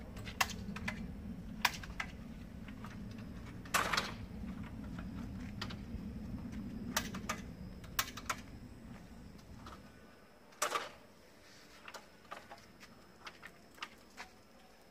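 Sumika SKM404 aluminium multi-position folding ladder clicking and clacking as its hinge locks are worked and its rails are swung out and extended: a string of sharp, irregular metal clicks and knocks, the heaviest clack about four seconds in and another near eleven seconds.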